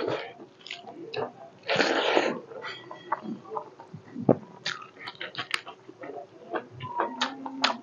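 Close-up mouth sounds of a man eating rice and meat with his hands: wet chewing and lip smacks in a run of short clicks. About two seconds in comes one loud breathy burst of air.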